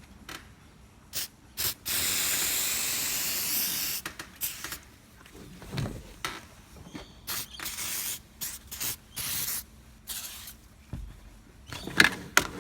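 Tyre shine sprayed onto a stiff car seat belt webbing: one long hiss of about two seconds, then several shorter spray bursts, with a few sharp clicks near the end.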